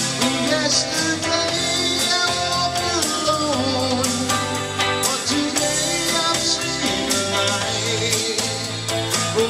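A small rock band playing live: electric guitar, electric bass and drum kit, with a man singing.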